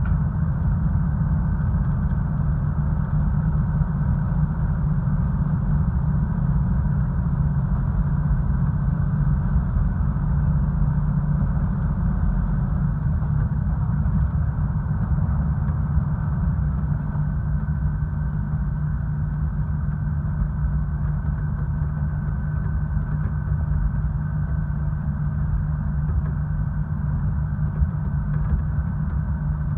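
A KiHa 66 diesel railcar's engine running with a steady low hum, heard from inside the passenger cabin.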